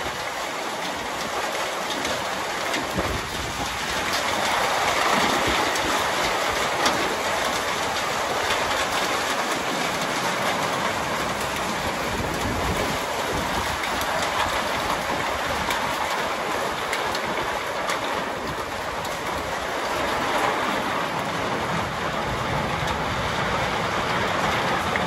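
Heavy downpour mixed with hail: a dense, steady rush of rain with the fine patter of hailstones striking hard surfaces. It grows louder about four seconds in.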